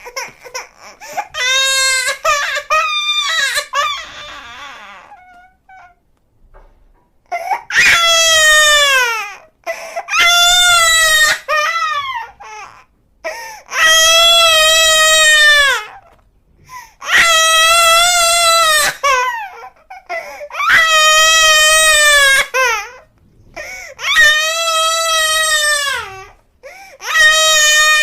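A baby crying: a few short, choppy cries, then a run of long high-pitched wails, each about two seconds and dropping in pitch at the end, with short pauses for breath between them.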